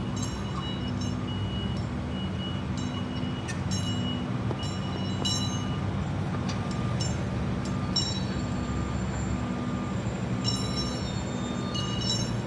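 Steady low rumble of an idling vehicle engine, with short high-pitched whistling tones coming and going over it.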